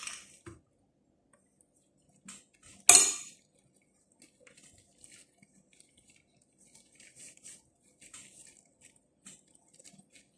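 Kitchen handling sounds from gloved hands rolling stuffed grape leaves: faint scattered rustling and ticking, with one sharp clink of a dish about three seconds in.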